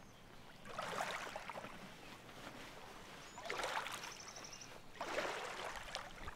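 Small waves washing onto a sand-and-pebble shore, swelling and fading three times.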